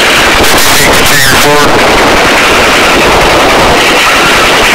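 Helicopter rotor and engine noise at the open cabin door, loud and distorted, with the rapid chop of the blades. A brief wavering tone sounds about a second in.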